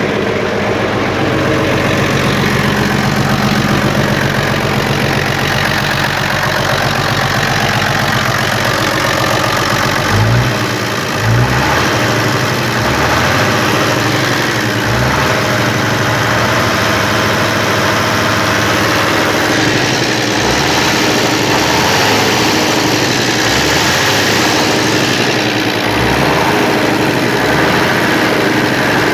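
FNM 180 truck's diesel engine running at idle while warming up after three years laid up. It runs steadily, with a couple of brief low surges about ten seconds in and uneven low pulses after that.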